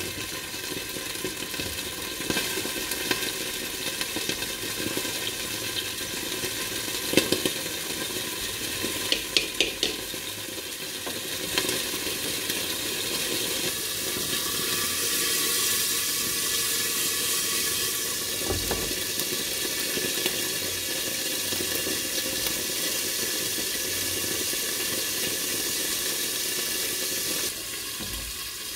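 Food sizzling in a frying pan, a steady hiss, with a few sharp clicks of a utensil against the pan a few seconds in. The sizzle grows louder partway through and drops off just before the end.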